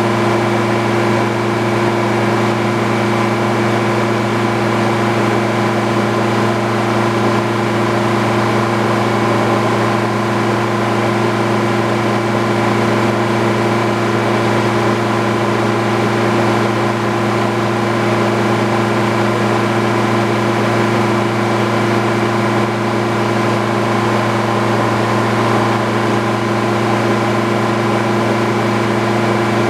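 Frick circular sawmill running steadily, its power unit and spinning blade holding one even pitch throughout.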